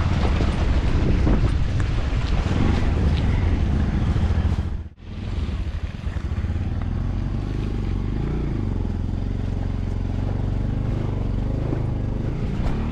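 Motorcycle engine running on the move, with wind rushing over the microphone. About five seconds in, the sound cuts out briefly and comes back as a steadier engine hum that dips and rises in pitch a little.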